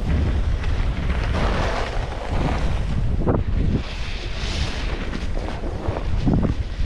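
Wind buffeting an action camera's microphone during a downhill ski run, a steady low rumble. The hiss of skis scraping over packed snow swells during turns, loudest about four seconds in.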